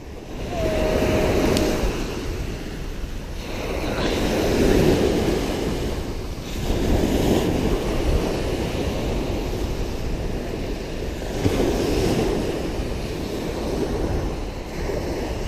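Small waves washing on the shore with wind on the microphone: a steady rushing noise that swells and fades every few seconds. A brief steady tone sounds about half a second in.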